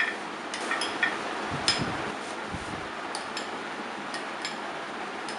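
Metal spoon clicking against a glass bowl while stirring whipped cream and mango pieces: scattered light ticks over a steady background hiss.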